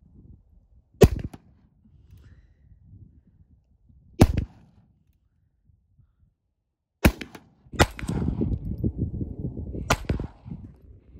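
Two shots from a Pietta .44 black-powder revolver, about three seconds apart. Then three shots from a Walther P22Q .22 pistol, with wind rumbling on the microphone under the later ones.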